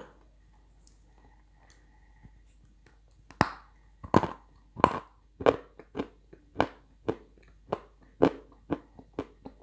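Crunching bites and chewing of a hard chunk of pale edible clay ('pistachio' clay). About a dozen crisp crunches start about three seconds in and come at a little under two a second.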